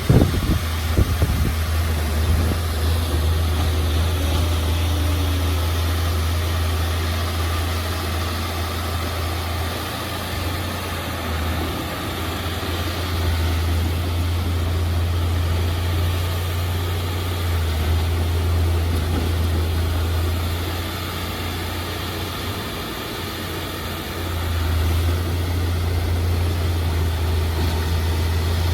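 Diesel engine of a Komatsu D31P crawler bulldozer running steadily with a deep, low hum, easing off twice and coming back up.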